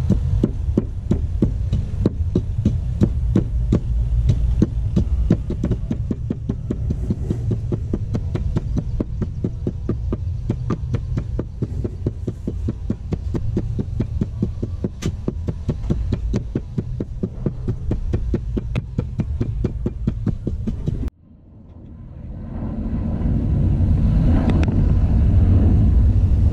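Wooden pestle pounding in a wooden mortar, quick regular thuds at about four a second over a steady low rumble. About three-quarters of the way through the pounding cuts off, and the low rumble fades back in on its own.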